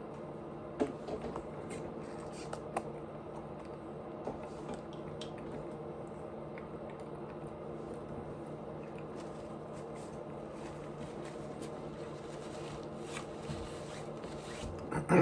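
Close-miked chewing of dumplings: soft wet squishing mouth sounds with scattered small clicks, over a steady low hum. A louder burst of mouth and handling noise comes near the end.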